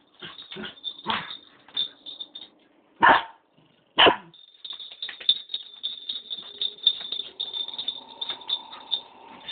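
A puppy barking and yipping in short sharp calls, the loudest two about three and four seconds in, a second apart, followed by a run of many small clicks.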